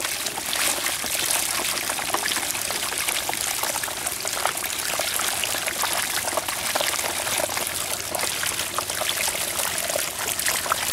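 Shallow water pouring and trickling steadily through a plastic chute into a mesh net bag, with many small sharp splashes of puti fish flapping in the water throughout.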